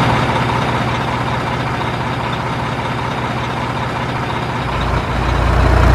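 Diesel engine of a Renault truck-mounted crane running with a steady low throb, growing louder and deeper near the end.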